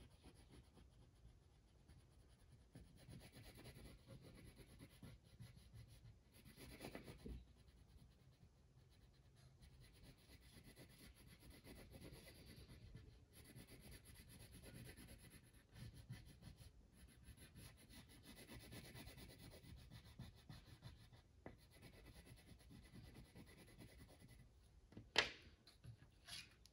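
Faint scratchy rubbing of a wax crayon shading back and forth across paper. Near the end there is a sharp knock, the loudest sound, as the crayon is set down on the wooden table.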